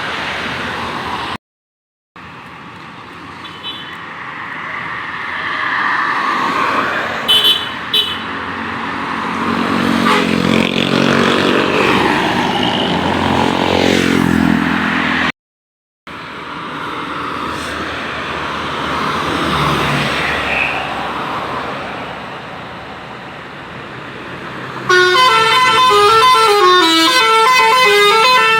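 Tour bus 'telolet basuri' multi-tone musical air horns amid passing bus and traffic noise, with pitched horn tones sliding down in pitch towards the middle. About three and a half seconds from the end the horn plays a quick tune of short stepping notes. The sound breaks off twice into brief silence at edits.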